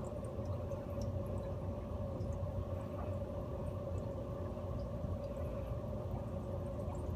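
Steady hum of aquarium equipment, a constant low rumble with a steady mid-pitched tone, with faint dripping and trickling water over it.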